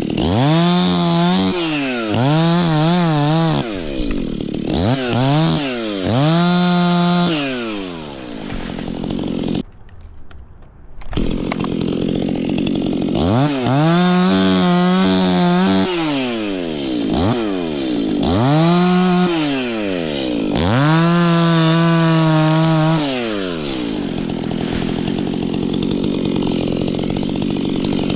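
Two-stroke chainsaw revving to full throttle, holding it, then dropping back, about eight times over, with a short lull about ten seconds in and a steadier, lower running sound near the end.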